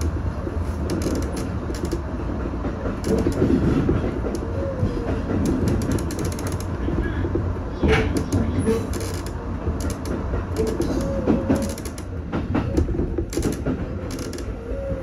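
A train running over points and round a curve, heard from inside the leading car: a steady low rumble with clicks from the wheels passing rail joints and crossings, and short wheel squeals about four times.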